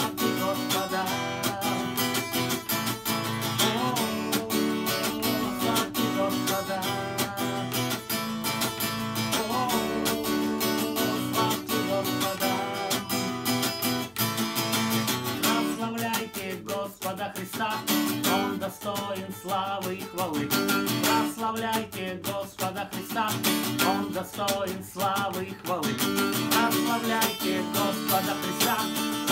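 Acoustic guitar strummed with a capo, accompanying a man singing a worship song in the first half. The singing thins out after about the middle, leaving mostly steady strumming.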